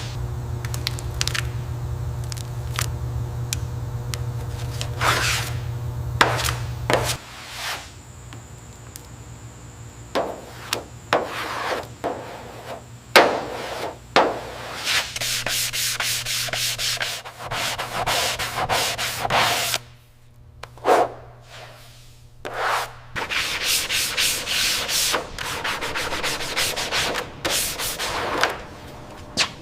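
Repeated scraping and rubbing strokes on a surface, irregular in spacing, with a steady low hum under them for about the first seven seconds that then stops.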